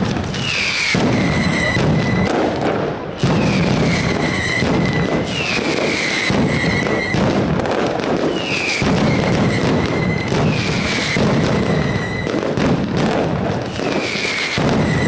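Mascletà barrage of firecrackers going off in a dense, continuous crackling rattle. A high whistle slides down and levels off every second or two.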